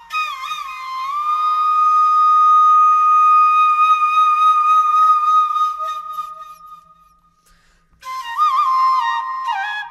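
Solo flute melody: a long held note that slowly fades out, then after a brief pause about eight seconds in, a new phrase with quick ornamented turns.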